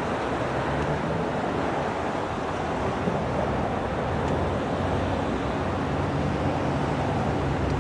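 Steady rumble of road traffic, cars driving across a railroad grade crossing, with a faint low engine hum.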